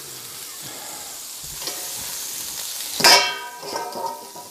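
Brussels sprouts sizzling in chicken stock on a flat-top griddle as the stainless steel bowl covering them is lifted off. About three seconds in, the metal bowl clanks loudly and rings out with a bell-like metallic tone for over a second.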